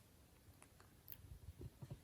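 Near silence with faint, quick clicks that come more often in the second half: a small pet's mouth noises.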